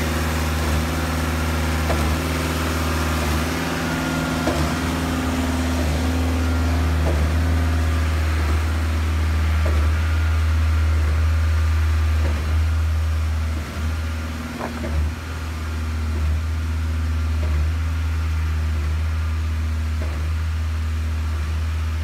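Engine of a truck-mounted concrete line pump running steadily with a low drone, dipping briefly a little past the middle, with scattered faint knocks.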